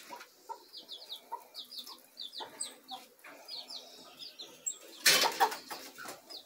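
Chickens clucking, with many short, high, falling peeps repeating throughout. About five seconds in there is a brief loud rattle as the wire-mesh coop is handled.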